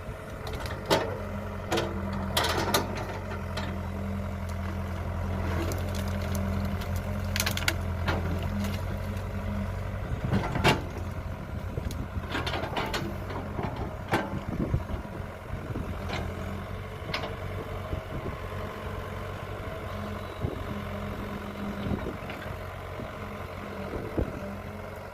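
Kobelco excavator's diesel engine running steadily, working harder over the first ten seconds and again briefly near the end, with scattered knocks and clanks from the machine and bucket at work.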